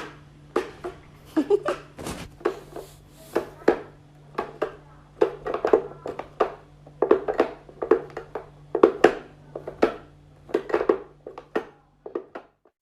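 A series of irregular short knocks and clicks, two or three a second, over a faint steady low hum.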